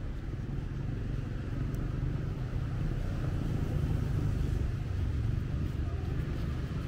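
Steady road traffic noise: vehicles running past with a continuous low rumble.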